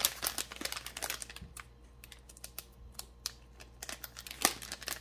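A plastic toy packet being handled and pulled open by hand, crackling and rustling in quick irregular clicks, with one sharper crackle near the end.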